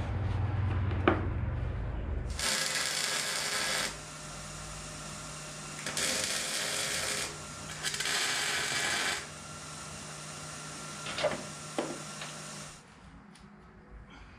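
Arc welder laying three short welds on a steel truck frame, each a steady hiss lasting about a second and a half, with a low hum between them; two sharp clicks follow near the end.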